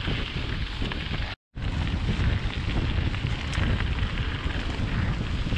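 Wind buffeting an action camera's microphone on a mountain bike's handlebars, over the rolling noise of the tyres on a gravel road, as the bike is ridden at speed. The sound drops out completely for a moment about a second and a half in, then carries on the same.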